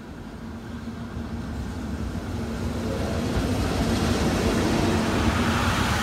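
EF65 electric locomotive hauling 12-series passenger coaches through a station, with a rumble of wheels on rail that grows steadily louder as the train approaches. It is loudest about four to five seconds in, as the locomotive and the first coaches go past close by.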